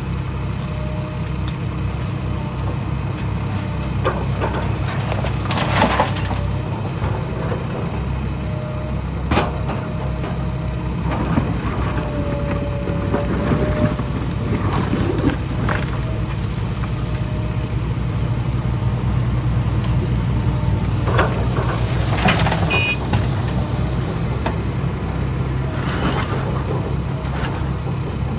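Heavy diesel construction machinery running steadily, with a low engine drone, an on-and-off thin squeal, and occasional knocks and clanks.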